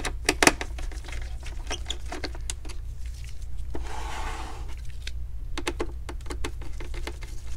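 Small screwdriver working the screws out of the bottom edge of an all-in-one computer: a string of light clicks and ticks of the tip and screws against plastic and metal. About four seconds in there is a brief rustling scrape as the unit is shifted on the bench, over a low steady hum.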